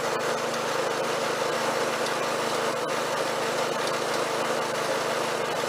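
Snapper rear-engine riding mower's small engine running steadily as the mower is driven along, a constant even hum.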